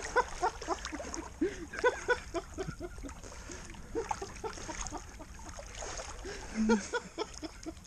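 River water splashing and gurgling around a person wading through it: a run of quick bubbly blips over a steady low rumble.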